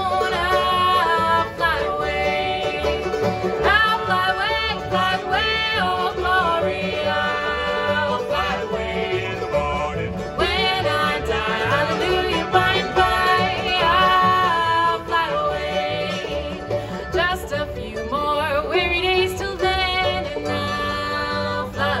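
Live bluegrass band playing an upbeat tune on acoustic guitar, upright bass and other string instruments, with a bass line pulsing steadily underneath and sung melody over the top.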